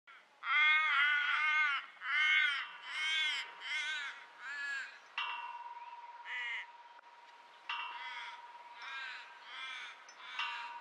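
A crow cawing in a run of drawn-out calls, loud over the first five seconds and fainter afterwards. About five seconds in, and twice more after that, the iron rings and chains of a flying-chain maypole swing clink together and ring on with a lingering metallic tone.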